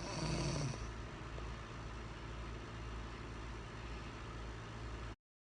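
A man snoring: one louder snore in the first second, then a steady low hum. The sound cuts off completely about five seconds in.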